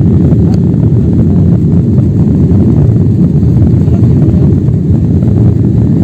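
Loud, steady low roar of an airliner's engines and rushing air, heard inside the passenger cabin during the climb after takeoff.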